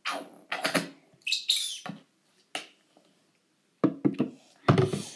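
Plastic hand sanitizer bottle squeezed upside down, gel and air squirting out in several short bursts. Near the end come louder rustles and knocks as a hand handles things close to the microphone.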